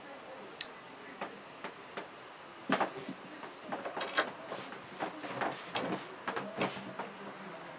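Glass of a Siemens mobile phone's LCD screen cracking under the pressure of a bench vise: sharp ticks and crackles, a few at first, then coming thick and fast from about three seconds in until near the end.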